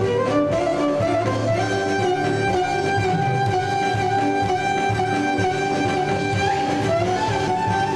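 Live Greek folk dance music: a violin plays the melody over plucked-string and keyboard accompaniment in a steady dance rhythm.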